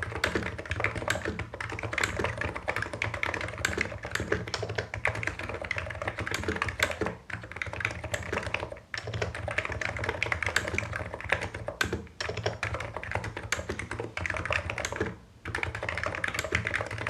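Fast, continuous typing on a Hansung Office Master capacitive (contactless-switch) keyboard: a dense stream of key strokes, breaking off briefly four times.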